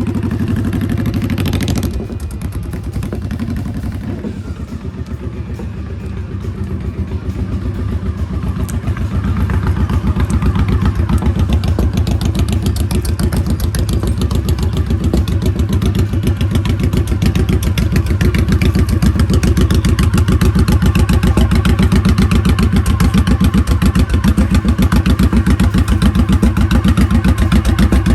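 Motorcycle engine running on the move, its firing pulses steady throughout; it grows louder about a third of the way in and then holds steady.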